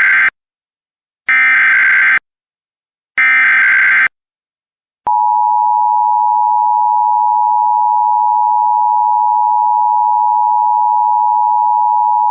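Emergency Alert System SAME header: three buzzy digital data bursts, each about a second long with short gaps between. About five seconds in comes the steady two-tone EAS attention signal. Together they announce an incoming emergency alert, here a tornado warning.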